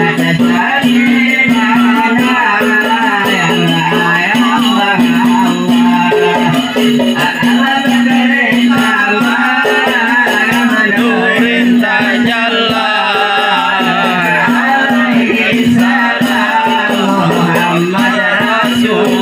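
Malay hadrah tar music: men sing a sholawat in the old Malay style with a lead voice, over steady, quick beating on tar frame drums.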